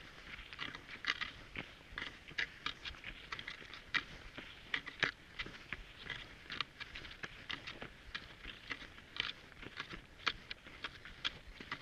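Cross-country skis and poles crunching on snow in an uneven run of short, crisp crunches, several a second.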